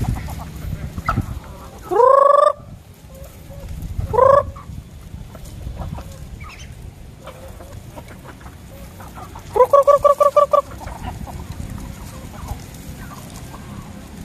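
Native chickens calling while feeding. Two loud rising squawks come about two and four seconds in, and a quick run of about seven clucks comes near the ten-second mark, over a low steady rumble.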